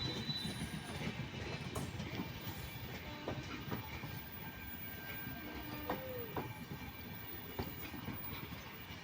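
Indian Railways train running on the track: a steady low rumble of the wheels with scattered clicks, and a brief squeal about six seconds in.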